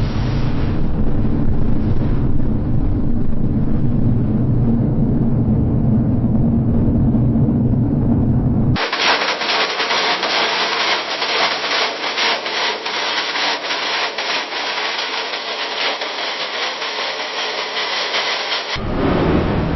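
Ironworks factory ambience. A heavy, low machinery rumble runs for the first part. About nine seconds in it cuts abruptly to a busy, rapid clatter of metal striking and scraping on metal. Near the end it switches back to a low rumble.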